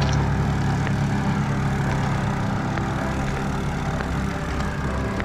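Motor vehicle engine idling steadily, a low even hum with a few faint ticks over it.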